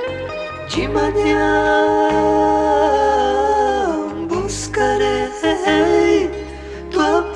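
Gospel song with a vocal group singing long held notes in harmony over bass and band accompaniment, the phrases gliding down at their ends.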